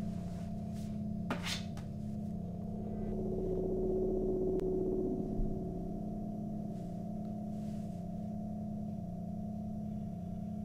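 Ambient synth drone: low sustained tones pulsing slowly and evenly, with a higher tone swelling in and fading a few seconds in. A single sharp click sounds a little over a second in.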